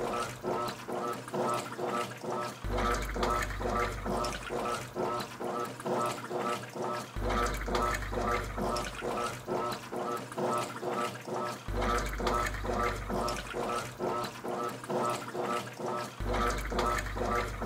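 Top-loading washing machine agitating laundry in water: rhythmic sloshing at about three strokes a second, with a low motor hum that comes on for about two seconds and drops out again, every four to five seconds.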